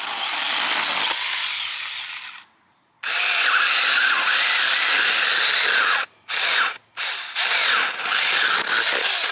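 Battery-powered mini chainsaws cutting through a 3-inch honeysuckle branch. First comes the Alloyman 6-inch 20 V saw, its electric motor struggling in the cut before it fades out about two seconds in. After a short gap the Saker 4-inch saw cuts steadily, then runs in several short bursts near the end.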